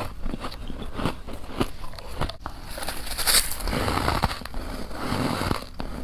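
Frost being crunched and chewed in the mouth: irregular crackling crunches, with a sharper crunch a little past three seconds in and a denser run of crunching near the end.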